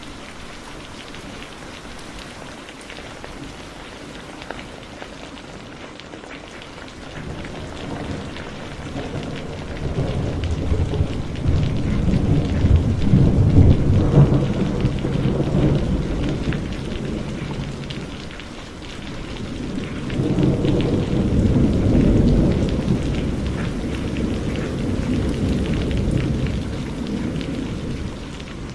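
Steady heavy rain with rolling thunder: a long low rumble builds about a quarter of the way in, peaks near the middle and dies down, then a second roll swells and fades out near the end.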